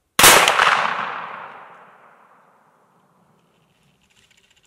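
A single muzzleloader rifle shot about a fifth of a second in. Its report rolls away in a long echo that fades over about two seconds.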